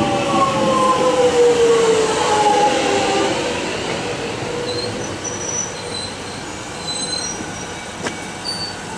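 Alstom X'trapolis electric train running past on the platform curve. Its motor whine glides down in pitch over the first three seconds over steady wheel-on-rail rumble, and short high squeals from the wheels come and go in the second half.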